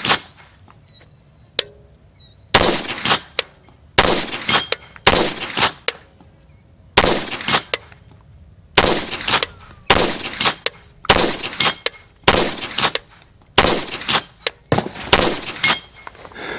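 CZ Scorpion Evo 3 S1 9mm pistol firing slow, deliberate single shots, about a second or two apart, with a steady high-pitched whine underneath.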